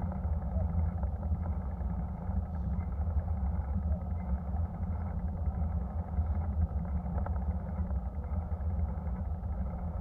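Steady wind rumble on the microphone of a camera mounted on a moving bicycle, with the noise of the bike rolling along an asphalt road.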